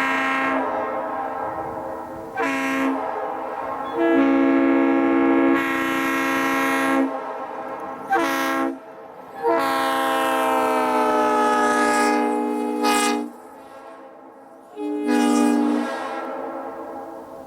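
Leslie RS3L three-chime locomotive air horn sounding a series of long and short blasts as the train runs by. During one long blast in the middle, the chord slides down in pitch as the horn passes.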